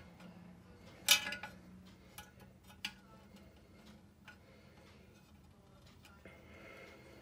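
A few sharp plastic clicks and light taps as a small screw is driven into a plastic model truck cab with a screwdriver. The loudest click comes about a second in, with fainter ticks after it.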